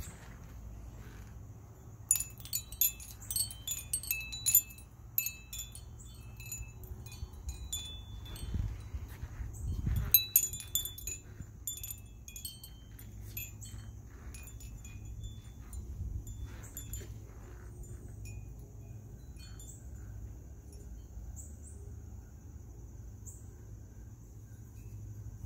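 Glass wind chimes, rings and discs of glass on copper wire, clinking against each other in the breeze: a flurry of bright tinkling strikes a couple of seconds in, another about ten seconds in, then sparser pings that thin out to a few faint ones near the end.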